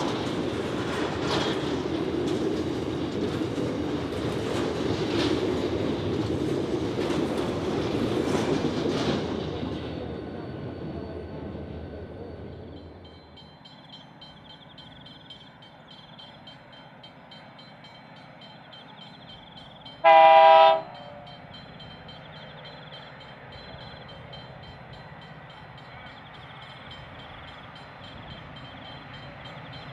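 Container freight wagons rolling past at speed, with wheels clicking over rail joints every second or two, fading away over the first dozen seconds. About twenty seconds in, an approaching diesel locomotive sounds one short horn blast.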